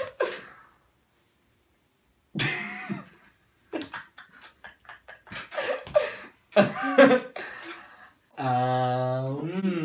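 Short bursts of laughing and coughing, then a man's voice holding one long steady note for about two seconds near the end.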